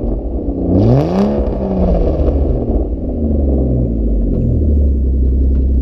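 Ford Fusion's 3.5 L Cyclone V6 exhaust being free-revved in park: a sharp rev that peaks about a second in, then two smaller, lower blips, dropping back to a steady idle in between.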